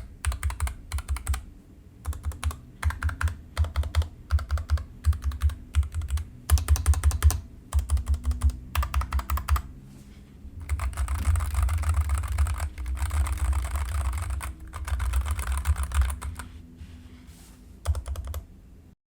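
Typing on a Nuphy Air 75 low-profile mechanical keyboard with brown switches: quick bursts of key clicks with short pauses, a longer fast run in the middle, and a short last burst near the end.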